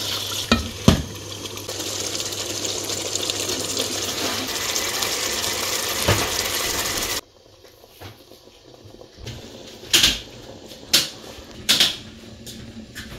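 Pot of chicken and chickpea curry cooking with a steady hiss, with a couple of clinks as chickpeas are tipped in. About seven seconds in the hiss cuts off, followed by a few sharp clinks of a utensil against the pot.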